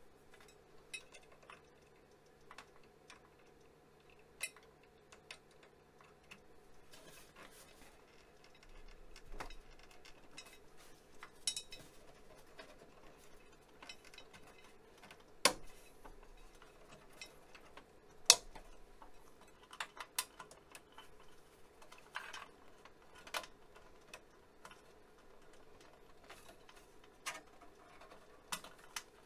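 Scattered clicks, taps and knocks of hands handling metal and plastic parts inside an Apple Lisa computer case, with two sharper clicks about halfway through, over a faint steady hum.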